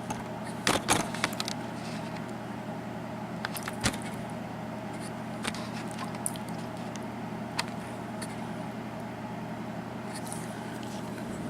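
A few light clicks and taps from small metal lock pins and tools being handled, over a steady low hum.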